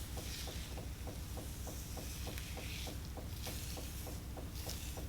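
Washing machine running: a steady low rumble with a faint ticking about five times a second. Over it, soft rubbing and squishing of hands working deep conditioner through wet hair.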